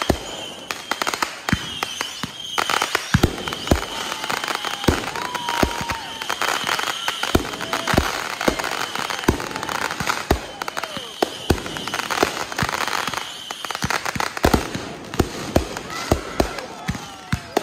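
Aerial fireworks going off in quick succession, sharp bangs of bursting shells one after another, often several a second, over a steady crackle.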